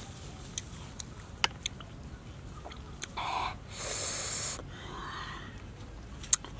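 Small sharp clicks of a metal fork tapping the fruit and the dish, with a couple of short breathy hisses of air in the middle.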